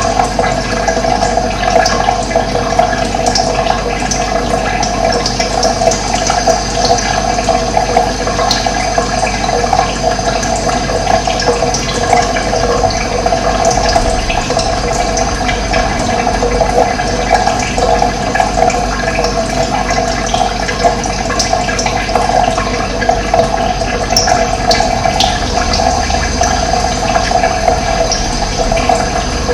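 Running water flowing in a steady, unbroken rush, with a few faint high chirps.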